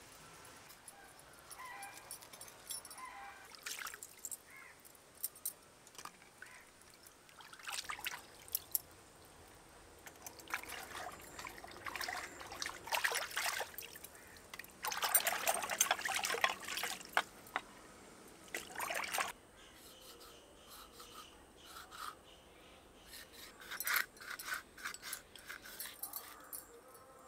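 Hands rubbing and swishing in a clay pot of water, with splashes and drips, in several separate bouts. Near the end a knife scrapes quickly along a fish, making a run of short scratchy strokes.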